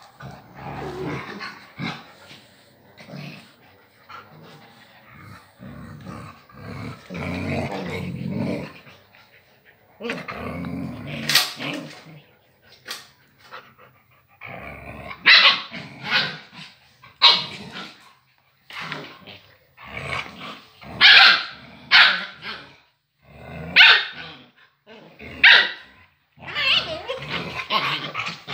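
Siberian husky puppies play-fighting: low growling and grumbling for the first several seconds, then a run of short, sharp, high barks and yaps about once a second.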